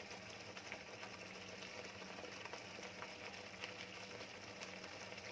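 Thick onion-tomato gravy simmering in a wok: a faint steady bubbling hiss with scattered small pops.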